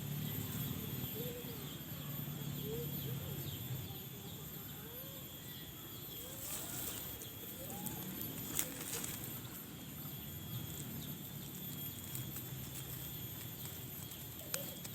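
Rice-paddy ambience: a steady high-pitched drone, with a short rising-and-falling call repeated about once a second for the first half.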